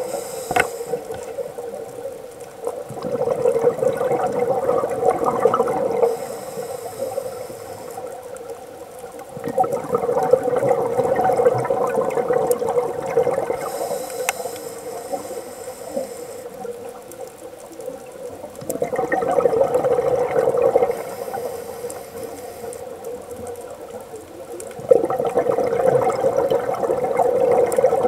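Scuba diver breathing through a regulator underwater: four long bubbling rushes of exhaled air, with a faint high hiss of inhaling in the quieter gaps between them.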